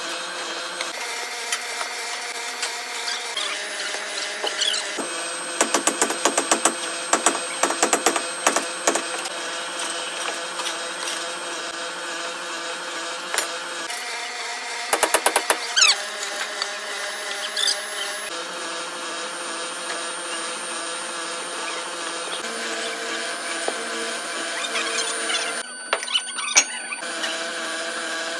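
Steady whine of workshop machinery with bursts of rapid sharp clicks and knocks; the whine's pitch shifts abruptly several times.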